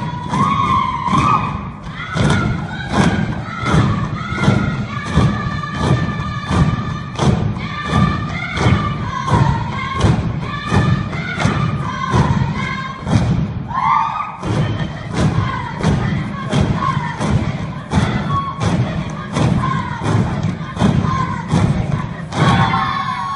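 Long wooden poles pounded on a stage floor in unison by a troupe of dancers, a steady rhythm of thuds, with voices singing over it.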